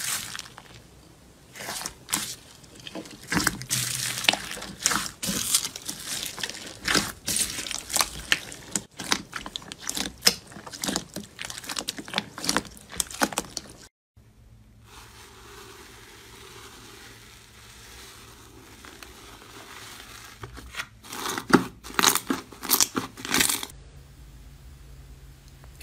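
Crunchy slime being squeezed and pressed by hand, making rapid crackles and pops. About halfway there is a sudden cut to a quieter stretch with a faint hiss, then another burst of crackling near the end.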